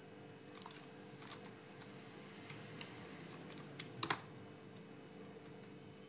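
Faint computer keyboard keystrokes, a few scattered light taps, with a sharper double click about four seconds in. A faint steady hum runs underneath.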